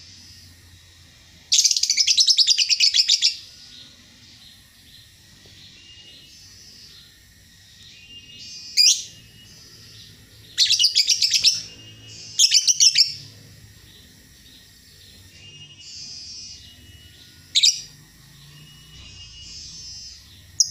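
Caged songbird singing: soft, varied high warbling phrases throughout, broken by loud, rapid chattering trills about two seconds in and twice more just past the middle, with single sharp loud notes in between.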